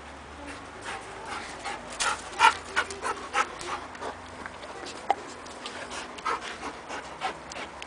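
A dog panting close to the microphone: quick, irregular short breaths, busiest and loudest a couple of seconds in.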